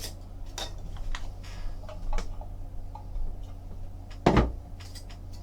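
Trading-card box and its contents being handled: scattered light taps and rustles, with one louder knock about four seconds in, over a steady low electrical hum.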